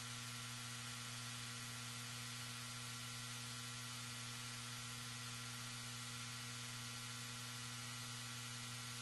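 Faint steady electrical hum with a layer of hiss from the audio feed, with no other sound.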